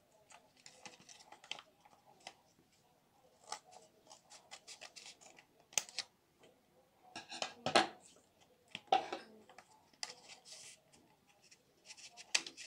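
Paper envelope being handled and cut open with scissors: irregular rustling, scraping and sharp snips of paper. The loudest snips come about eight to nine seconds in.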